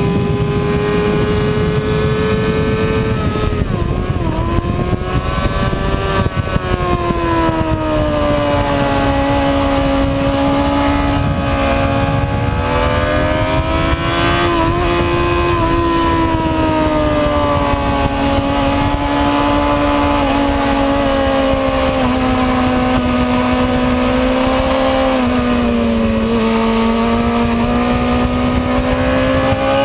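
Onboard sound of a motorcycle engine at speed on a race track, its pitch rising and falling over several seconds with throttle and gear changes, with a loud rush of wind noise beneath.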